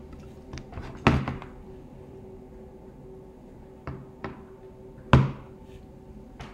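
A few sharp knocks and taps over a faint steady hum, the two loudest about a second in and about five seconds in.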